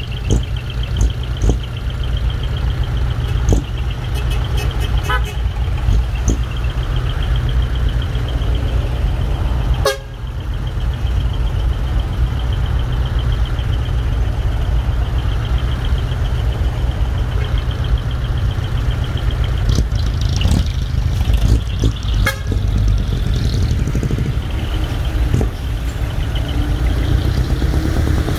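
Heavy diesel trucks with manifold-split (mani-wari) exhaust running and moving off, with a deep, loud low rumble throughout. A steady high horn-like tone sounds over the first ten seconds.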